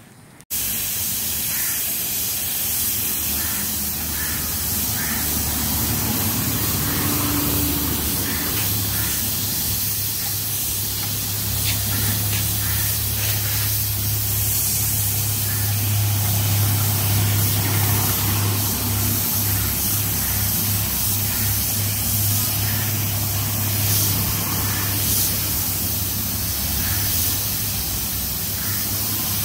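Compressed air hissing steadily from a gravity-feed spray gun as paint is sprayed onto a car bonnet, with a steady low hum underneath. The sound starts abruptly about half a second in.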